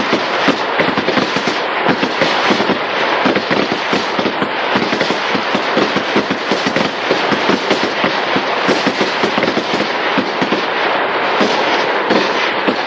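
Rapid gunfire from many 7.62 mm weapons firing together on a range, FN rifles and GPMG machine guns: many shots a second overlapping into a continuous crackle without a break.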